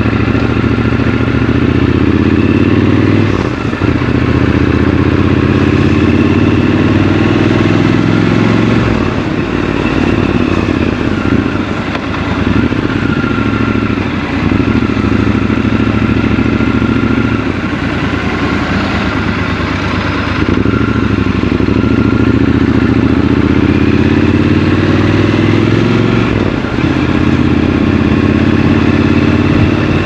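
Triumph Scrambler 1200 XC's 1200 cc parallel-twin engine on the move. Its pitch climbs under acceleration and drops back briefly about four times, as it is shifted up through the gears.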